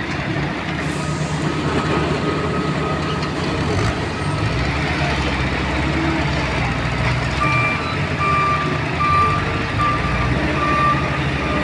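A heavy construction vehicle's engine running steadily, with its reversing alarm beeping about once a second. The beeps are faint early on and clearer in the second half.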